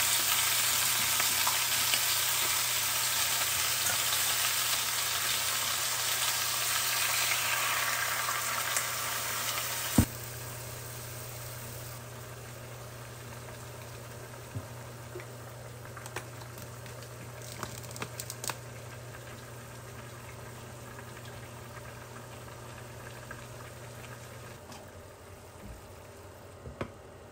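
Meat and potato chunks sizzling as they fry in a saucepan, with chopsticks stirring them. About ten seconds in there is a sharp click, and after it the sizzle is much quieter, with a few small clicks and taps.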